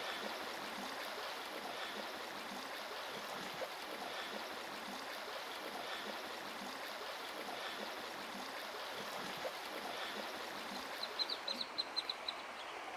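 Shallow river running steadily over stones. Near the end, a quick series of short, high peeps from a brood of ducklings.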